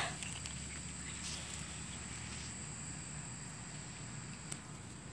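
Faint outdoor background: a steady low rumble and a thin, steady high tone. A short rustle comes about a second in, and a small click near the end.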